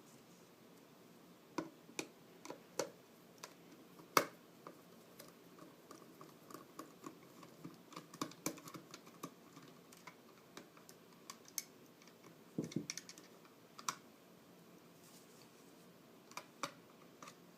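Scattered clicks and light knocks of the hard plastic parts of a NutriBullet blender's motor base being handled and pulled apart, with one louder knock about four seconds in and a quick run of clicks near the end.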